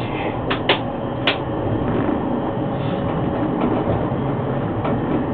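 Tram running along the track, heard from the driver's cab: a steady rumble of wheels and running gear. Three sharp clicks come in the first second and a half, with fainter ticks later.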